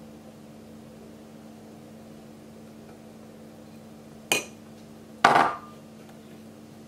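A metal teaspoon being put down among kitchen dishes: a short ringing clink about four seconds in, then a louder clatter about a second later, over a steady low hum.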